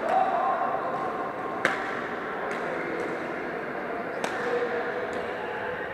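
Badminton rackets hitting shuttlecocks in a large, echoing sports hall: sharp, irregular strokes from several courts, with faint voices under them.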